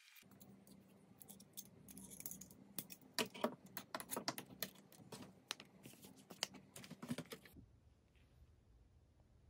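A folding metal scissor-type tablet stand being unfolded and adjusted by hand, giving a run of irregular clicks and light metallic clinks. The clicks stop suddenly near the end, leaving a faint room hum.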